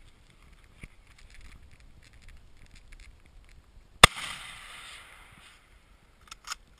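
A single rifle shot about four seconds in from a scoped rifle, its report ringing on for about a second and a half before dying away. A few quick clicks follow near the end.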